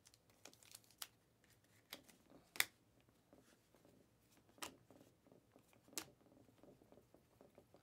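Faint clicks and light sliding of Panini Mosaic basketball cards being flipped one by one off a stack held in the hands. The clicks are sparse and irregular; the sharpest comes about two and a half seconds in, another about six seconds in.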